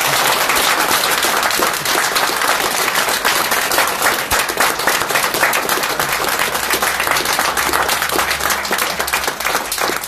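A group of people applauding, dense steady clapping.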